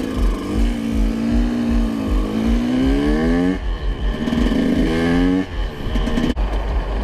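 KTM dirt bike engine accelerating, the revs climbing for about three seconds, dropping sharply as it shifts gear, climbing again, then falling off as the throttle closes a little past halfway.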